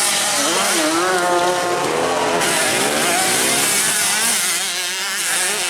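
Dirt bike engines racing on a grasstrack, their pitch rising and falling as the riders rev and shift, with more than one bike heard at once.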